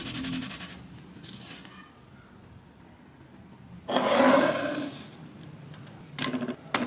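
A spatula scraping under a pancake in a nonstick frying pan, then about four seconds in a ceramic plate sliding across a wooden tabletop, followed by a few light knocks near the end.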